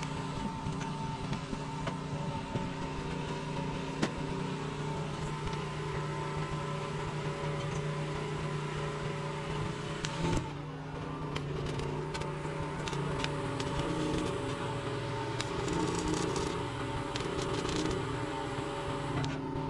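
Stick welding with a small portable arc welder on steel pipe: a steady electrical hum from the welder, with the arc crackling in short spells in the second half.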